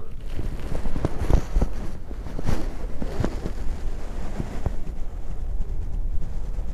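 Wind buffeting the microphone: a steady low rumble with scattered short knocks through the first five seconds or so.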